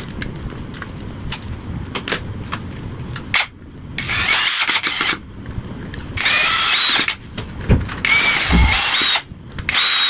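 Cordless drill running in four short bursts of about a second each against a wooden landing-gear mount, its whine climbing as each burst starts. A few light clicks come first.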